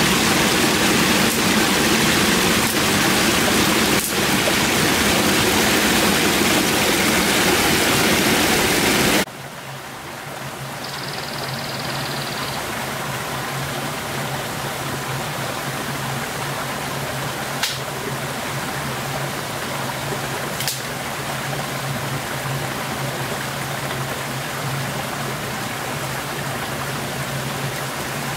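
Shallow forest stream running over rocks, a loud, steady rush of water. About nine seconds in it cuts off abruptly to a much quieter steady hiss with a low hum, broken by a couple of sharp snaps.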